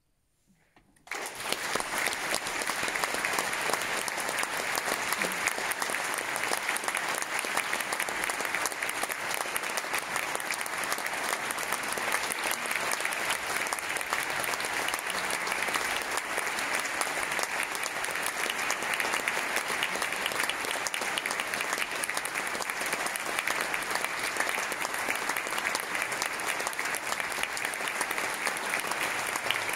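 Audience applauding, breaking out suddenly about a second in and going on as steady, dense clapping.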